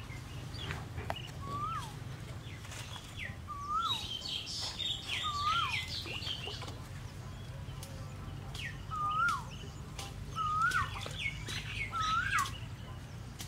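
Birds calling: one repeats a short call that rises then drops, every second or two, while others chirp higher in quick clusters, busiest around the middle and near the end.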